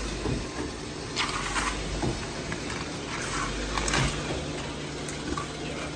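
A vehicle engine running steadily, with a few short clunks and scrapes over it.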